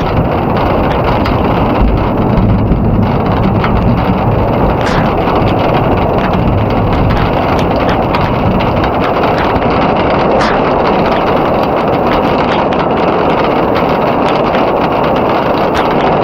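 Heavy tropical rain pouring down in a steady, dense hiss, with scattered sharp drips and splashes close by. A low rumble sits under the rain for the first few seconds.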